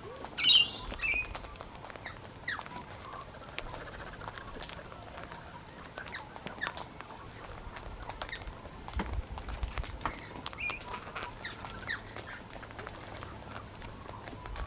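Gang-gang cockatoos feeding, their beaks cracking and nibbling food in a steady scatter of small crunchy clicks. A short loud call comes about half a second in.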